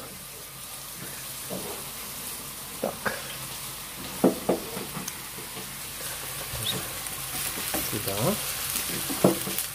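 Chopped onion sizzling in hot oil in a frying pan, a steady hiss that grows a little louder toward the end. A few short knocks sound as the onion is stirred in the pan.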